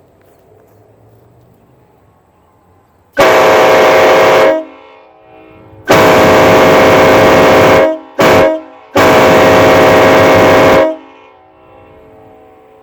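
Locomotive air horn sounding the long-long-short-long railroad crossing signal: four loud, steady blasts, the third very short, each several notes sounding together.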